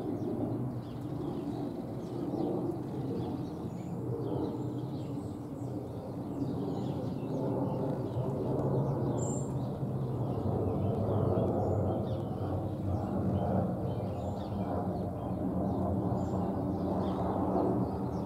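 Jet engines of a Boeing 757 airliner passing overhead, a steady rumble that grows a little louder about halfway through. Small birds chirp faintly over it.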